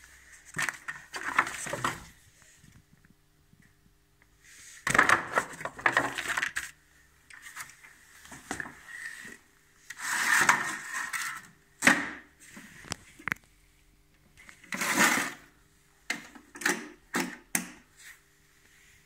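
Handling of a Festool SYS-MFT systainer's hard plastic case: irregular knocks, rattles and scrapes of the lid and body, with a few sharp clicks late on as the T-Loc latch is worked.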